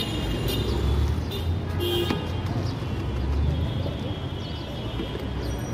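Busy street traffic: a steady low rumble of vehicle engines, with thin high tones and a short click about two seconds in.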